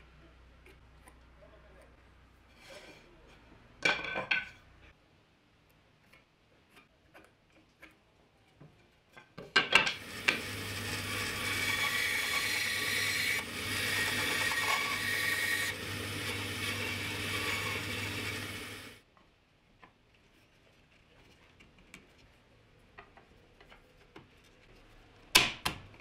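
Band saw running and cutting small blocks from an ash strip: a steady motor hum with cutting noise that starts about ten seconds in and stops abruptly some nine seconds later. A few sharp wooden knocks come before and after it as ash frame pieces are set down and handled on the bench.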